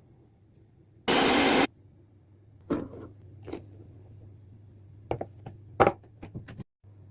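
Kitchen handling noises: a loud, even rushing burst lasting about half a second about a second in, then a series of sharp knocks and clicks, bunched together near the end.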